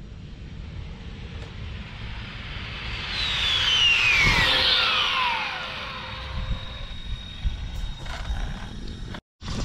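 Arrma Limitless 8S electric RC car speeding past, its high-pitched jet-like whine loudest about four seconds in and falling steeply in pitch as it goes by.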